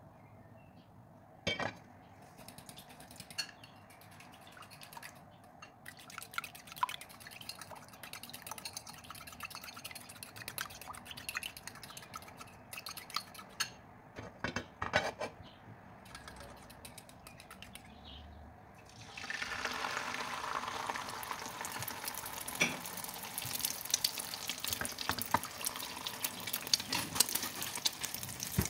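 Cooking oil heating in a nonstick frying pan, with scattered small pops and crackles. About two-thirds of the way in, beaten egg goes into the hot oil and the pan breaks into a steady, louder sizzle full of quick crackles as the egg fries.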